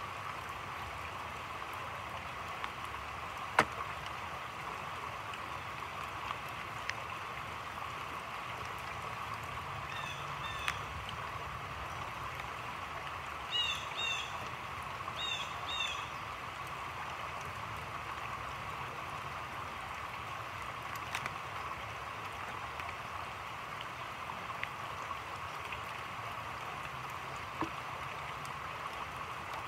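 Steady rain falling on a creek's surface and the surrounding foliage, a constant hiss with occasional sharp drip clicks, the loudest about four seconds in. Around the middle a bird gives a few short, high chirps in quick pairs.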